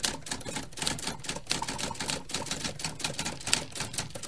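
Small audience applauding: a dense, irregular patter of individual hand claps that starts suddenly and is cut off abruptly.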